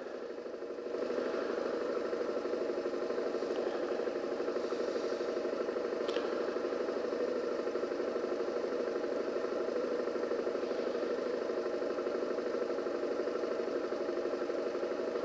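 Suzuki V-Strom motorcycle engine running steadily at low speed, a constant drone that steps up slightly about a second in.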